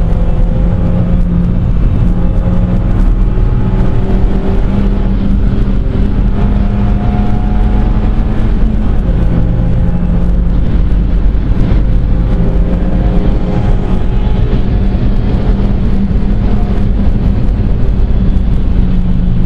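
Seat Leon Cupra's engine heard from inside the cabin while driven hard, its pitch rising and falling with throttle and gear changes over a constant low rumble of road and tyre noise.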